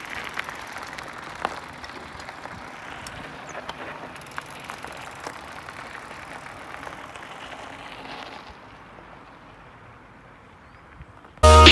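Electric mountain bike tyres rolling over a gravel track: a steady crunching hiss with scattered small clicks of stones. It quietens about two seconds before the end, and loud music with a beat cuts in right at the end.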